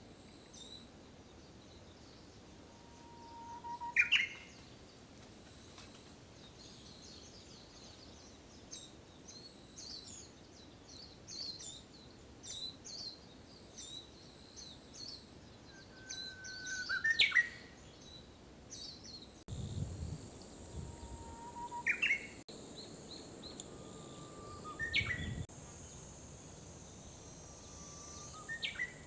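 Japanese bush warbler (uguisu) singing its "hoo-hokekyo" song five times: each a long held whistle ending in a quick rising flourish. Faint high chirps of other small birds fill the gaps, and in the last third there are low rumbles and a steady high hiss.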